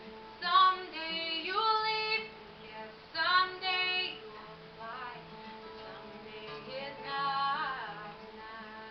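A woman singing an original acoustic song and accompanying herself on acoustic guitar. Her voice comes in three phrases with gaps between them, and the guitar chords ring on underneath.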